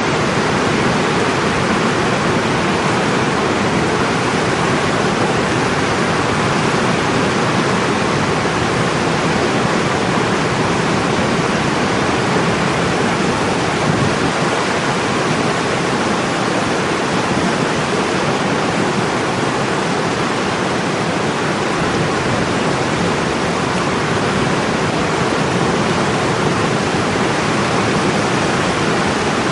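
Floodwater of a swollen river pouring over a reservoir dam's spillway: a steady, loud rush of water.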